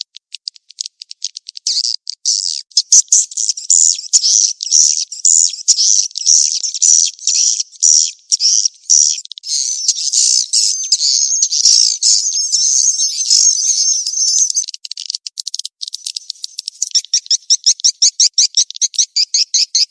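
Swiftlet mating-chase calls, from a lure track played to draw swiftlets into nesting houses. A quick train of clicking chirps opens, then dense, high, overlapping twittering, and near the end fast, evenly spaced chirps again.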